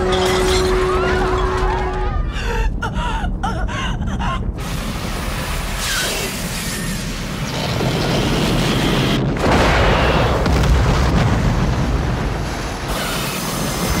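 Film sound effects of a volcanic eruption: a continuous heavy rumble with crashes and explosive blasts. The loudest surge comes about nine seconds in.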